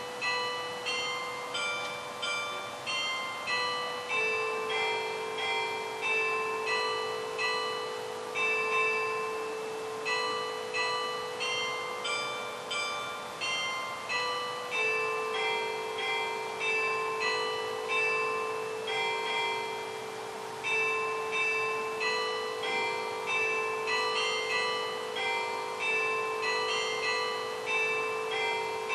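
Church bells ringing in a steady sequence of changing notes, about one stroke every three-quarters of a second, each stroke ringing on under the next with a long low hum beneath.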